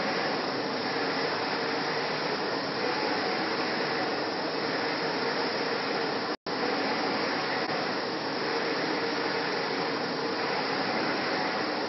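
LED UV flatbed printer running as it prints, its carriage travelling along the gantry: a steady mechanical whirring noise. The sound cuts out for an instant about six seconds in.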